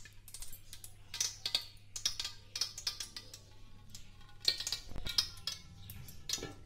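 Faint, irregular clicks and crackles, several a second, from ghee heating in an aluminium pot while a plastic spoon spreads it.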